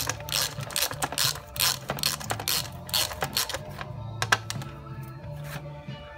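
A ratcheting hand screwdriver clicking as it drives a screw through a ground wire's ring terminal into bare sheet steel. The wire is being fastened as a chassis ground. The clicks come about three or four a second and stop about four seconds in.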